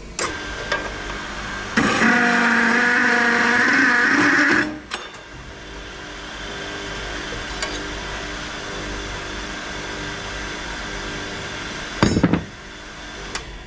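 Metal-cutting cold saw: it starts up, then cuts through metal stock for about three seconds with a loud ringing whine. After that the motor runs on more quietly, and a couple of sharp knocks come near the end.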